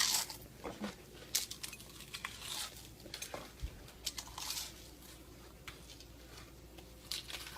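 Someone eating potato chips fast: short, irregular crunches as the chips are bitten and chewed.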